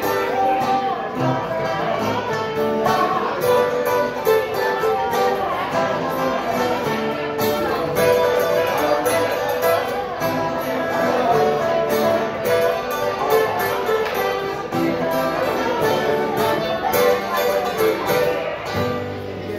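Acoustic bluegrass band playing an instrumental passage, with banjo, fiddle and guitar together.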